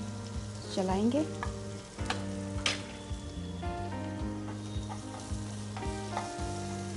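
Wooden spatula stirring chopped onion, garlic, ginger and green chillies as they sizzle in hot oil in a nonstick frying pan. The spatula knocks sharply against the pan a couple of times about two seconds in.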